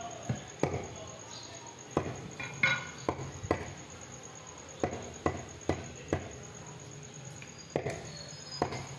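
Meat cleaver chopping beef into small cubes on a wooden log chopping block. Sharp knocks of the blade through the meat into the wood, about a dozen of them, coming irregularly in small groups.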